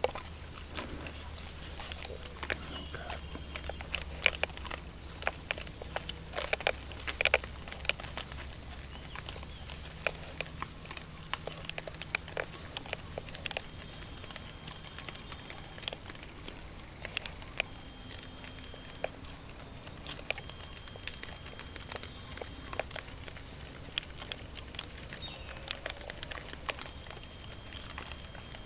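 Young wild boar feeding and moving about on the ground below: irregular crunching clicks and footfalls, busiest in the first third. A steady high hiss runs underneath.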